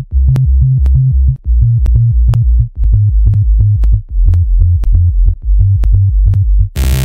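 Electronic dance music with a heavy pulsing bass line and a sharp click about twice a second. Near the end a loud, dense layer covering the whole range cuts in.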